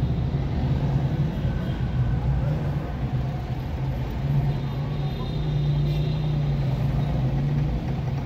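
Steady low engine hum and road noise from a car driving in slow city traffic, heard from inside the moving car.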